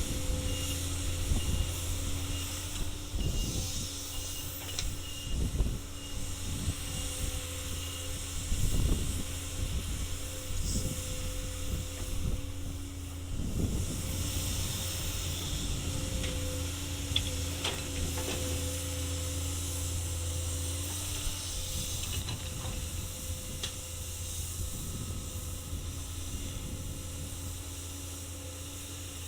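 Komatsu excavator running steadily under load, with a continuous engine hum, a steady whine and a high hiss, and scattered thuds. About two-thirds of the way through, the low hum drops in level.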